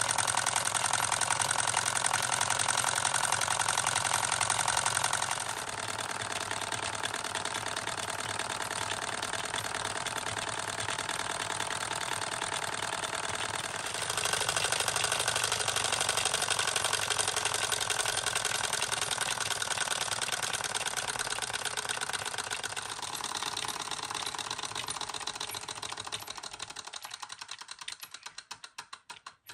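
Ernst Plank model 681/1 water-cooled toy hot air engine running and driving a toy hammer mill by a string belt: a fast, even mechanical clatter, fading away near the end.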